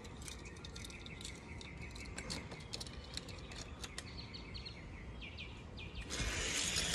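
Birds chirping, with scattered light ticks and a faint steady high tone. About six seconds in, a louder, even rushing rattle starts as two die-cast toy cars, a Matchbox '69 convertible and a '32 Vicky, roll down the plastic Hot Wheels track.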